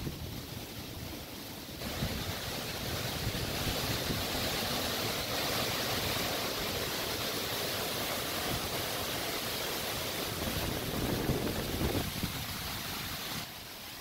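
Strong wind gusts roaring through leafy tree branches, a dense rushing roar that swells about two seconds in and eases near the end, with wind rumbling on the microphone.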